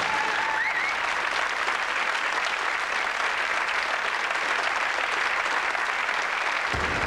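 Studio audience applauding steadily, with the last notes of the show's theme music in the first second.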